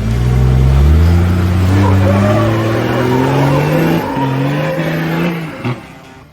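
4WD vehicle's engine revving under load, its pitch climbing steadily, dropping about four seconds in as it changes gear, then climbing again before fading out near the end.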